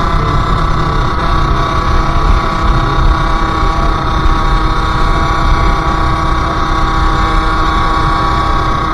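Sherco SM-R 50's 50cc two-stroke engine running at a steady pitch while riding, easing off slightly near the end, over a low rumble.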